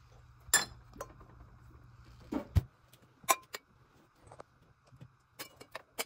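Wine glasses and glass tumblers clinking against each other and knocking on a plastic basket as they are set in one at a time: about ten sharp, separate clinks, some ringing briefly.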